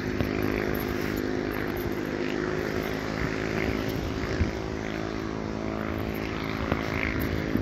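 A steady engine drone holding one even pitch throughout, from an unseen motor, with a few faint knocks over it.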